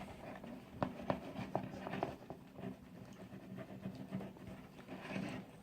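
Spoon stirring thick glue slime in a bowl: faint, irregular light clicks and taps.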